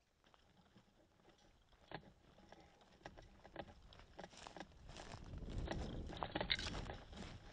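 Close rustling, crackling and rubbing of clothing and tactical gear against the body-mounted camera as the player moves. It starts faint and grows louder, with a low rubbing rumble loudest near the end.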